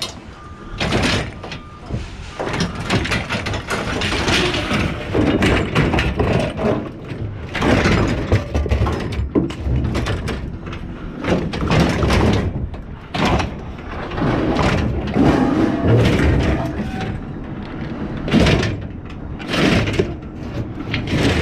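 Scrap metal being handled and pulled apart: irregular clanks, knocks and scraping of metal parts, with many sharp strikes.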